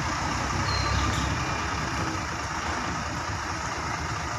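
Diesel engine of a concrete truck running steadily.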